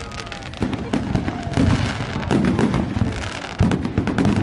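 Fireworks display: aerial shells bursting in a few heavy booms, over dense continuous crackling from the bursting stars.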